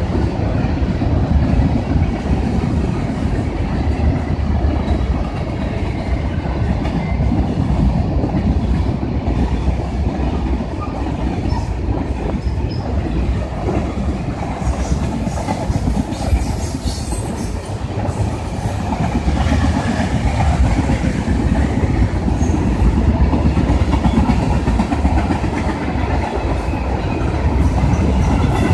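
Freight train cars rolling past, wheels clacking over rail joints in a continuous heavy rumble, with faint wheel squeal at times.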